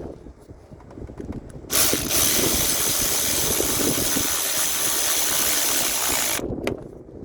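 A loud, even hiss starts suddenly about two seconds in, holds steady for about five seconds and cuts off abruptly. Light clicks and knocks come before and after it.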